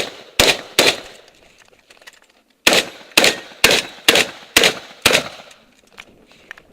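Shotgun fired in quick succession: three shots about 0.4 s apart, a pause of about two seconds, then six more shots about half a second apart, each with a short echo. Faint small clicks follow near the end.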